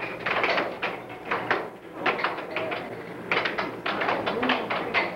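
Air hockey puck clacking off the mallets and the table's rails in a fast rally: several quick runs of sharp clicks, the longest from about three seconds in.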